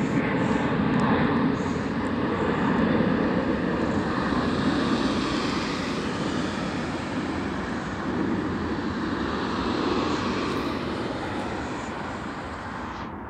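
Engine noise of a British Airways Boeing 747-400 (Rolls-Royce RB211 turbofans) climbing away after takeoff. It is a steady jet roar that slowly fades as the aircraft recedes.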